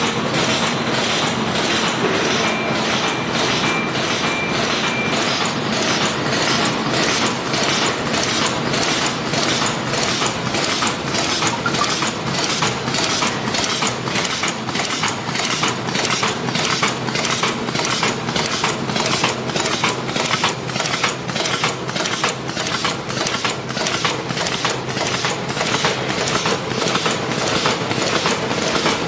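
Plastic wicketer bag-making machine running: a steady mechanical clatter with a regular clack about three times every two seconds, one for each cycle of the machine.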